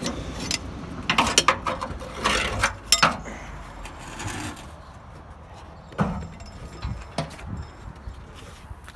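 Metal clanking and rattling as engine and chassis parts are shifted by hand for a test fit: a quick run of clatter over the first three seconds, then single knocks about six and seven seconds in.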